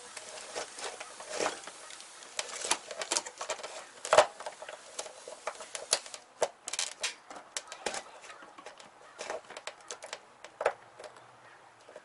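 Irregular clicks, taps and rustles of a VW Corrado's wiring harness and plastic loom being worked and pulled out by hand, with a sharper knock about four seconds in.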